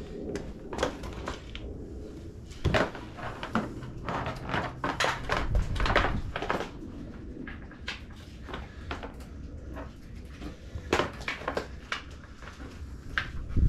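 Irregular clicks, clinks and knocks of metal parts and hand tools being handled on a dirt bike being reassembled, some sharper and louder than others.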